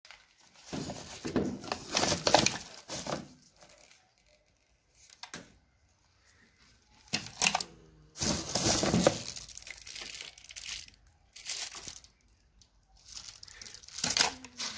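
Clear plastic bag crinkling and rustling as it is handled, in several irregular bursts with short quiet gaps between them.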